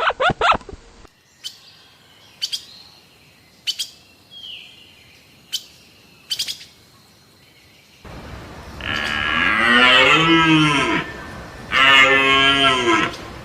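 Livestock calling: two long, drawn-out calls that rise and fall in pitch, the loudest sounds, in the last third. They follow a stretch of sparse sharp clicks and the tail of a quick run of repeated calls in the first second.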